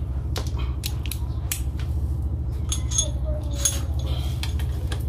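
Metal hand tools, a 12 mm wrench or socket, clicking and clinking against the scooter's front caliper and wheel fittings in a string of sharp, short knocks. A steady low hum runs underneath.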